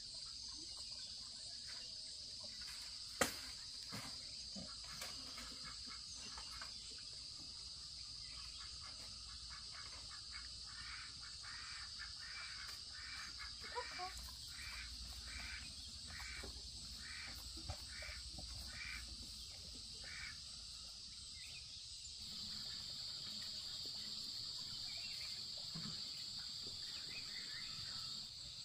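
Steady high-pitched chorus of insects, with a bird calling over and over at about two calls a second for some ten seconds in the middle. A single sharp knock about three seconds in.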